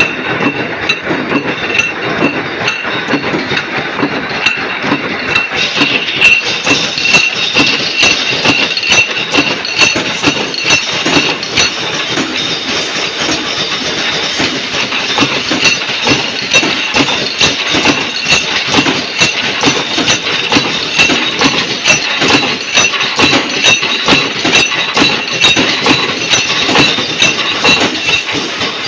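Power punch press stamping flat washers from steel plate: a rapid, regular run of metallic strokes with clinking. A steady high whine joins in about six seconds in.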